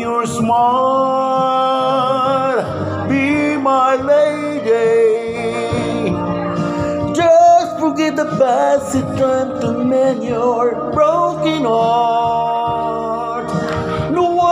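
Karaoke music playing loudly over a home sound system, with a voice singing long, wavering notes.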